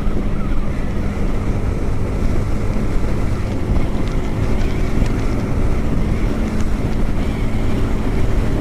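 Yamaha R15M's 155 cc single-cylinder engine running at a steady cruising speed, its tone holding even, under heavy wind rumble on the helmet-mounted mic.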